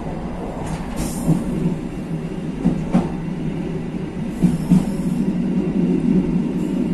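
Passenger train running along the track: a steady rumble of wheels on rail, with a few sharp clicks at irregular moments.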